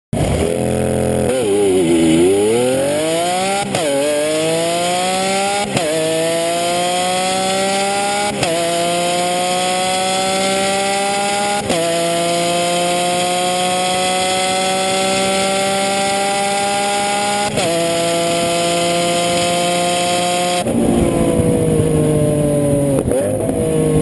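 Lamborghini Aventador's V12 engine accelerating hard through the gears: the pitch climbs in each gear and drops sharply at five quick upshifts. Near the end the pitch falls as the car slows.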